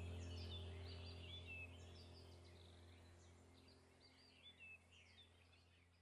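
Faint chirping birdsong over a low steady hum, the whole soundscape fading away gradually.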